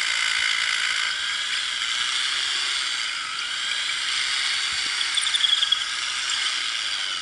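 Corded hammer drill boring a bolt hole into the rock face, running steadily under pressure and stopping right at the end.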